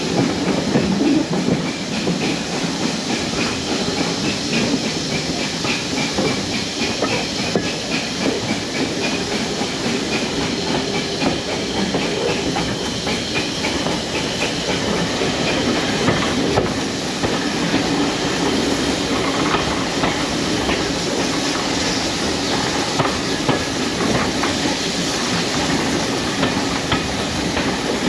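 Steam-hauled passenger train running along the line: a steady rumbling running noise with steam hiss and the regular clatter of wheels over the rails.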